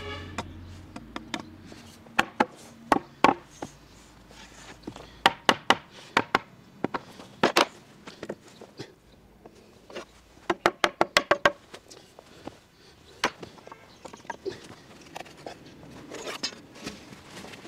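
Hammer knocking wooden rungs into the mortises of a wooden frame's rails: sharp wooden knocks, some single and some in quick runs of taps.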